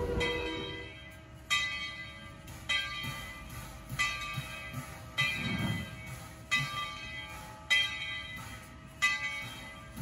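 A steam locomotive's whistle cuts off about a second in. The locomotive's bell then rings steadily, one strike about every one and a quarter seconds.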